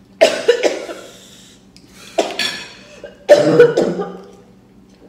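A woman coughing hard in three fits, from the chili of spicy spaghetti.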